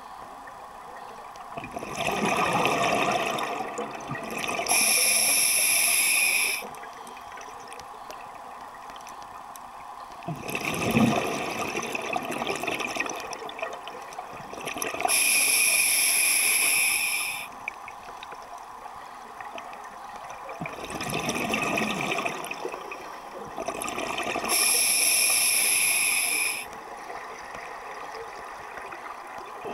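Scuba diver breathing underwater through an open-circuit regulator: a slow cycle of gurgling exhaled bubbles followed by a hissing inhalation, about one breath every ten seconds, three times.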